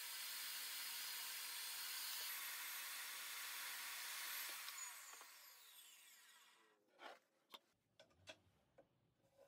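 Table saw running steadily, then switched off about four and a half seconds in, its blade spinning down with a falling whine over a couple of seconds. A few sharp knocks of wood pieces on the saw table follow near the end.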